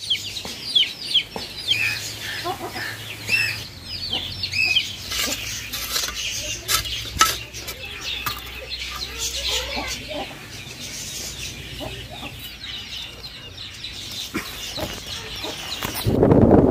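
Birds chirping and calling, thickest in the first few seconds, with scattered sharp chops of a hand hoe blade biting into dry soil. Wind buffets the microphone in the last moment.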